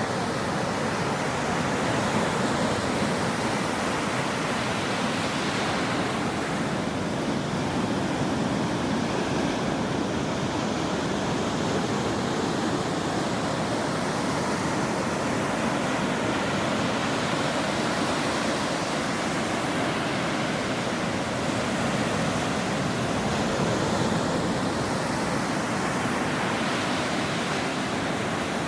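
Ocean waves breaking on a shore: a continuous wash of surf that swells a little now and then.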